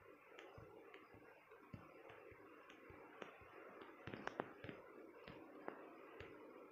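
Near silence: faint room tone with a dozen or so soft, irregular clicks and taps, two slightly louder ones a little past the middle.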